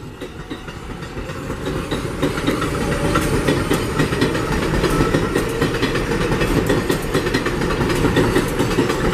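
R188 subway train pulling out and picking up speed, its wheels clattering over the rail joints. It grows louder over the first three seconds, then stays loud.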